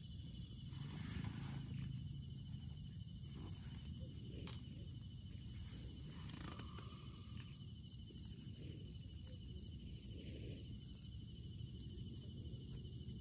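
A cat purring close to the microphone, a continuous low rumble that swells briefly near the start. A constant high chirring of insects runs underneath.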